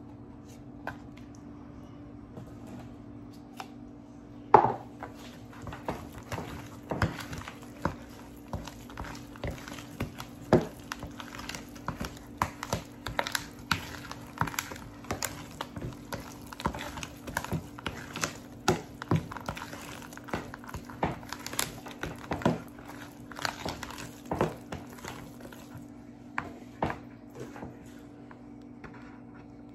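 A metal spoon stirring thick cornbread batter in a plastic mixing bowl, knocking and scraping against the bowl in quick, irregular strokes. The stirring starts about four seconds in with one loud knock and stops near the end.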